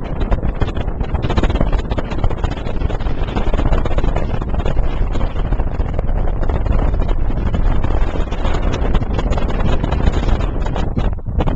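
Wind and road noise of a moving car, with the wind buffeting the microphone in loud, uneven gusts.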